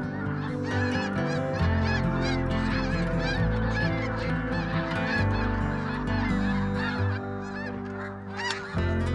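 A large flock of snow geese calling overhead: a dense chorus of many overlapping high honks.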